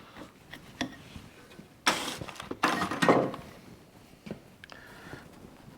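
Metal die halves and a sheet-metal part being handled by hand: scattered light clicks and knocks, with two louder scraping clatters about two and three seconds in.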